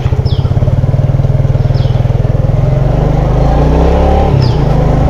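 Modenas Kriss underbone's single-cylinder four-stroke engine running as the bike pulls away, a steady low exhaust note with a brief dip about four seconds in. The engine has just been overhauled after water and sand got into it.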